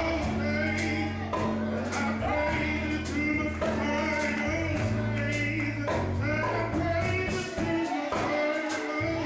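Live gospel praise-and-worship music: voices singing over held deep bass notes and a steady beat. The bass drops away briefly near the end.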